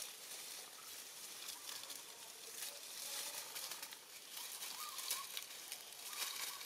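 Dry fallen leaves crackling and rustling as a baby monkey crawls and handles the leaf litter.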